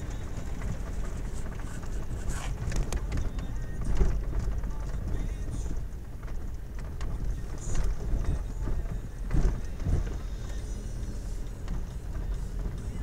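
Car running slowly over a broken, potholed road, heard from inside the cabin: a steady low engine and road rumble, with the suspension thumping as the wheels drop into holes, four times harder than the rest.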